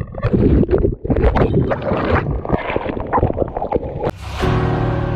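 Seawater splashing and churning around a camera at the water's surface as a hand paddles through it, with wind and water buffeting the microphone. After about four seconds it gives way to music.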